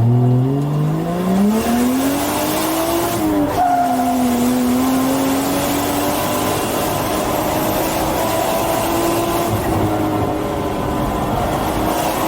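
Toyota Chaser JZX100's 1JZ straight-six heard from inside the car under hard acceleration. The revs climb steeply, fall at an upshift about three and a half seconds in, then hold high and wavering while the car drifts, with tyres squealing over the engine.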